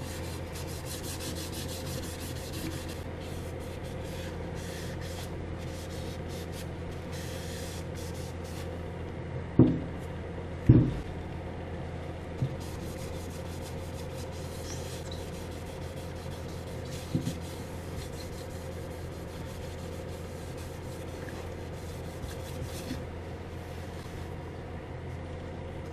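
Hand-held 3M abrasive pad steadily rubbed over an original Lambretta TV175 brake disc, scrubbing off surface rust. A couple of sharp knocks about ten seconds in, with smaller ones later.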